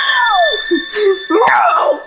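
A high-pitched voice wailing in long rising-and-falling glides, over a steady high tone that fades away toward the end.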